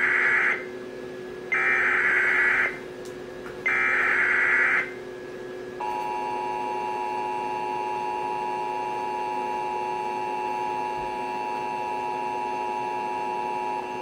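Sage Digital ENDEC playing out an Emergency Alert System alert. First come the SAME header's data bursts: three buzzy chirps about a second long with short gaps between them. Then, from about six seconds in, the steady two-tone EAS attention signal sounds, marking the start of a warning broadcast.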